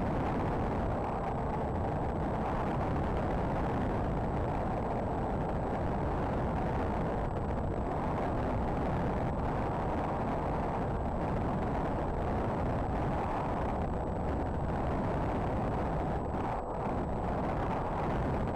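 Wind rushing over the microphone of a small camera strapped to an RC foam plane in flight: a steady, deep roar of air noise that eases briefly about sixteen seconds in.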